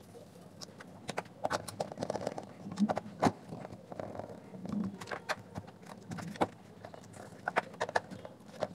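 Irregular small clicks and ticks of a screwdriver turning out the small screws of a docking speaker's plastic base, with hands handling the casing.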